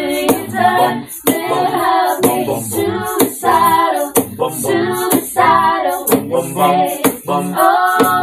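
A cappella group singing a pop medley in close harmony, female voices leading, over a percussive beat about once a second that the male members make with their voices.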